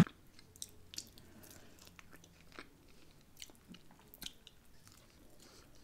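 Close-miked chewing of barbecue rib meat, heard as soft, irregular mouth clicks.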